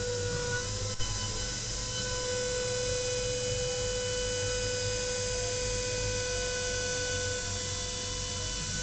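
CNC machine's spindle running steadily while milling 10 mm aluminium, a constant whine of several steady pitches over a low hum. A single sharp click about a second in.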